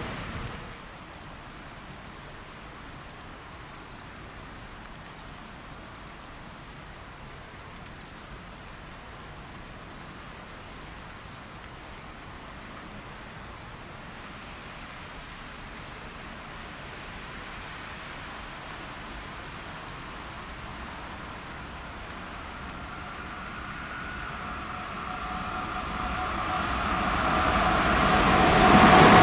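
Steady hiss of background noise, then a Bayerische Regiobahn RE5 electric regional train approaching, growing steadily louder over the last six or seven seconds with a whine from its electric drive.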